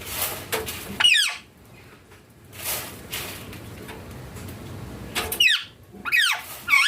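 Indian ringneck parakeet giving short, high-pitched squawking calls that sweep quickly in pitch: one about a second in and several close together near the end. There are also a couple of brief hissy bursts between them.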